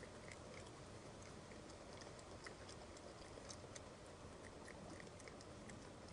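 Raccoon chewing seed and cracked corn: faint, irregular crunching clicks over a steady low hiss.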